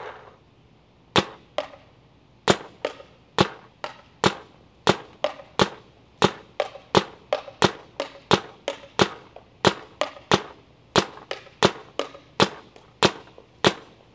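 Paintball marker firing a long string of shots through a .679 Freak XL 8-inch barrel insert: sharp pops about two to three times a second, starting about a second in, with uneven spacing.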